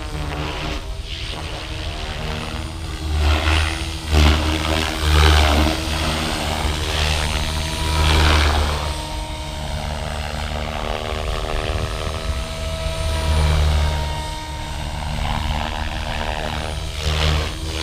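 Electric Blade Fusion 550 RC helicopter in flight: the 550 mm main rotor beats and whooshes over a steady electric-motor and gear whine. The blade noise swells loudly several times as the helicopter is flown through hard manoeuvres.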